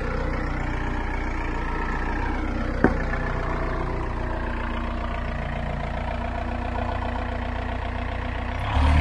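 Telehandler engine idling steadily, with a single sharp knock about three seconds in; just before the end the engine gets louder.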